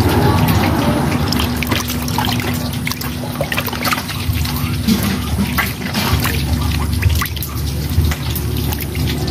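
Water splashing and dripping in a plastic tub as hands grab and lift out live eels, a run of small irregular splashes and trickles. A steady low hum runs underneath.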